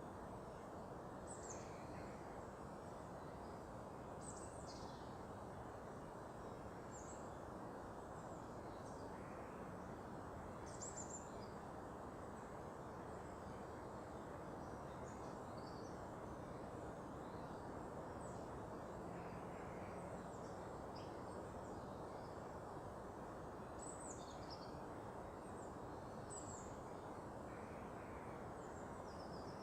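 Small birds giving short, high calls that drop in pitch, one every second or two, over a steady faint background noise.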